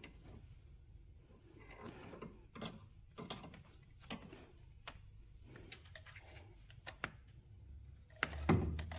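A few faint, scattered clicks and taps at irregular intervals, over a low hum that rises near the end.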